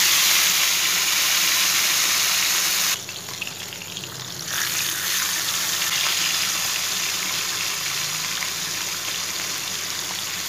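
Masala-coated whole fish shallow-frying in hot oil in a nonstick pan, sizzling steadily. The sizzle drops away suddenly about three seconds in and picks up again a second and a half later.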